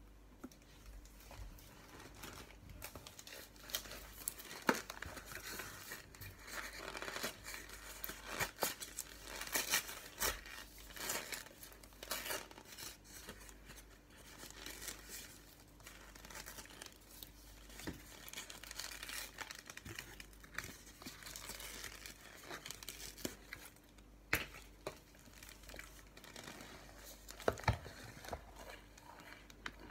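Cardboard carton of cornstarch being torn and peeled off the packed brick inside: irregular tearing and crinkling, with a few sharp clicks near the end.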